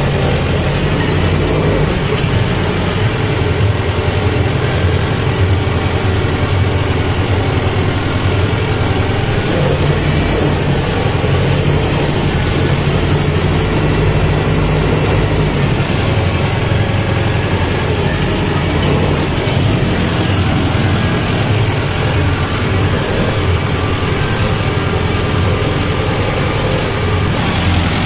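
Mahindra Novo 755 DI tractor's 3800 cc four-cylinder diesel engine running steadily at about 1500 RPM while pulling a cultivator through the soil. It is pulled down about 150 RPM by the load of the trash-covered ground.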